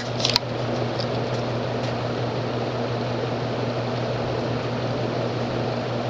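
Union Super 36 ceiling fan with a cast aluminum motor running on high speed: a steady rush of air from the spinning wood blades over a steady low hum.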